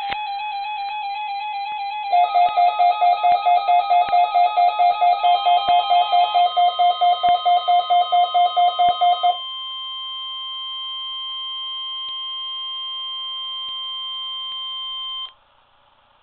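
Weather radios sounding an emergency alert during a NOAA Weather Radio test. A warbling electronic beep is joined about two seconds in by a fast pulsing beep at about three a second. From about five seconds the steady 1050 Hz warning alarm tone sounds through a radio speaker and cuts off abruptly near the end.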